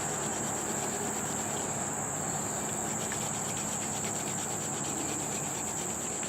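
Steady, high-pitched insect chorus, a continuous shrill drone with a low, even rushing noise beneath it.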